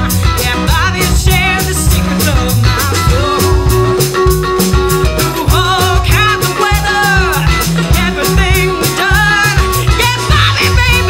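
Live folk-rock band playing: a steady drum beat and bass under a wavering lead melody line, with no words in the singing transcribed.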